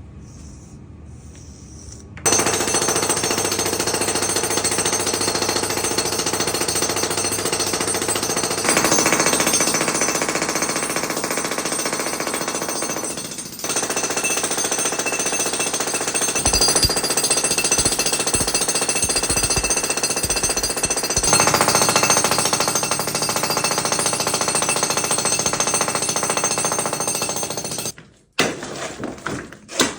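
Jackhammer breaking up a concrete floor slab, running continuously with a brief pause about halfway through, then cutting off shortly before the end.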